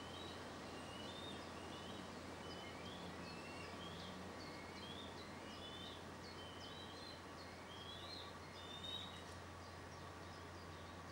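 Faint, high bird calls: short chirps and whistled notes repeating every half second or so, over a steady hiss and a low hum.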